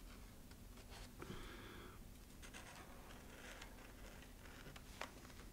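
Faint scratching of a felt-tip marker tracing along the edge of a cardboard pattern onto sheet foam, in short strokes, with one light tick about five seconds in.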